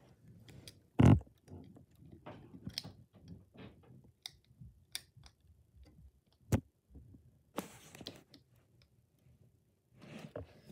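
Plastic Lego Technic parts clicking and knocking as a piece is pressed onto the model and the model is handled, in an irregular run of small clicks with a sharp knock about a second in and another past the middle.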